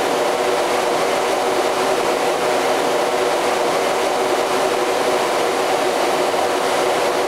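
Steady machinery drone in a boat's engine room: an even running noise with a hum of several steady tones, unchanging throughout.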